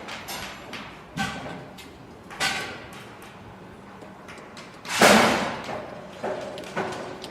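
Construction site ambience: irregular knocks and clangs of materials and tools, several leaving a short ringing, over a steady background hum of the site. The loudest, a heavy clang, comes about five seconds in.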